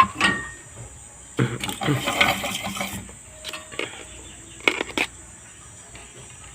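Clicks and clatter of small hard tools and parts being handled and set down on a workbench: a sharp click at the start, a busier patch of clatter about a second and a half in, and two more sharp clicks near the end.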